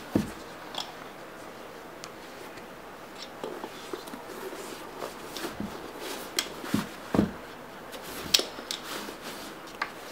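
Sneakers being pushed into a mesh laundry bag: soft rustling of the bag with scattered light taps and clicks, a few sharper ones near the start and in the second half.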